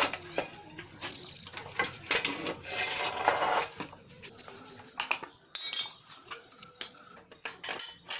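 Metal tools and motorcycle parts clinking and clattering as they are handled, with a run of scraping noise in the first half.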